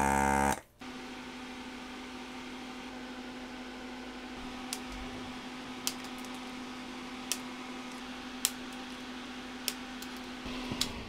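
A desoldering gun's vacuum pump buzzes for about half a second. Then a steady motor hum runs, sinking in pitch as it winds down near the end. Over it come five sharp snips about a second apart: flush cutters clipping component leads on a circuit board.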